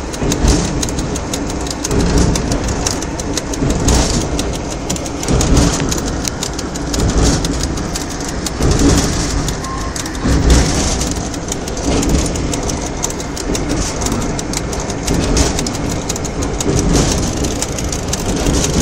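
A train running along the track, heard from inside the locomotive cab: a steady rumble and rattle full of small knocks and clatter, swelling in loudness every second or two.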